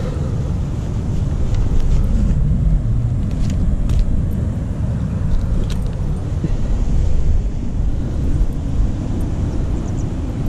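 Wind buffeting the microphone, a steady low rumble that flickers in strength, with a few faint clicks from handling the landing net and fish.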